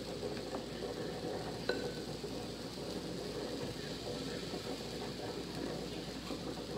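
Pancake batter sizzling softly and steadily on a hot electric griddle as it is ladled on, with a light clink about two seconds in.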